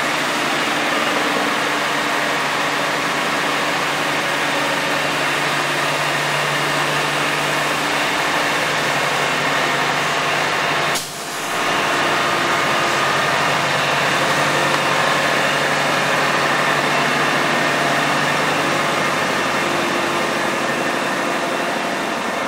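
Mobile crane's engine running steadily while it swings a hoisted sailboat mast, with a brief drop about eleven seconds in.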